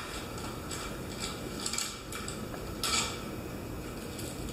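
Paper wrapper of a sterile glove pack crinkling in a few short bursts as it is unfolded, heard through a laptop's speaker.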